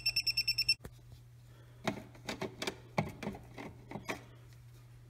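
Non-contact voltage tester beeping rapidly and high-pitched, about ten beeps a second, at a live outlet; the beeping is the sign that the outlet has power. It stops under a second in, followed by a few faint scattered clicks and knocks.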